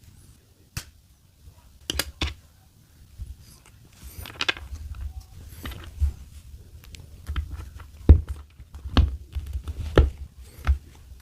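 Small plastic figure parts being handled and pressed together, giving a series of sharp clicks and knocks with some rustling in between.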